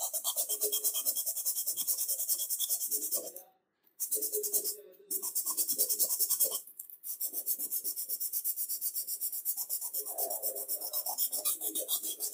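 Sandpaper rubbed briskly back and forth around a wooden tool handle: rapid scratchy strokes, about five a second, with two short pauses.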